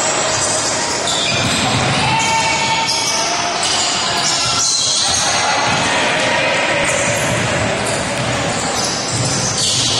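Basketball game on an indoor court: the ball bouncing on the floor and players' shoes squeaking in short high squeals, with the hall's reverberant crowd noise.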